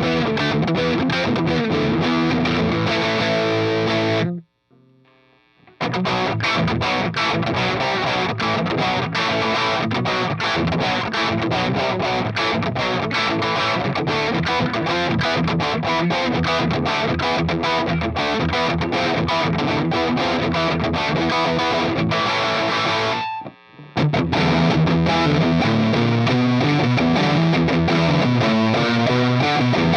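Gibson Custom Shop Les Paul Special Double Cut electric guitar played with a distorted tone through a Mesa Boogie Mark V:25 amp and 2x12 cabinet. It drops out abruptly for about a second and a half some four seconds in, then again briefly near the end.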